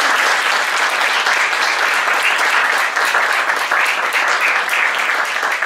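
Small seated audience applauding steadily at the close of a speech.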